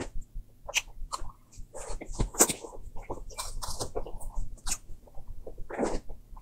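Close-miked eating sounds: wet lip smacks and chewing clicks from a mouthful of soft pink cake, with a metal spoon scooping and scraping through the cake in the middle.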